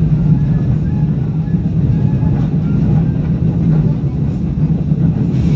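Korail new-model Seoul Subway Line 4 train running through a tunnel: a steady low rumble of wheels on rail, with faint higher tones coming and going above it.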